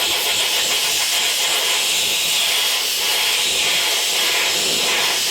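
Compressed-air blow gun hissing steadily, cooling a freshly tack-welded sheet-metal patch panel to keep it from warping.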